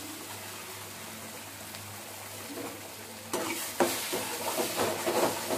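Ground masala paste sizzling as it lands in hot butter in a kadai; about three seconds in, a ladle starts stirring it around the pan, louder and uneven.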